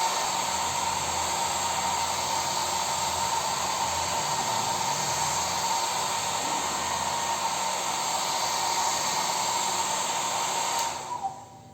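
Philips HP8120 hair dryer running on its first, cool-air setting: a steady blowing whir with a constant whine. It is switched off about 11 seconds in and quickly winds down.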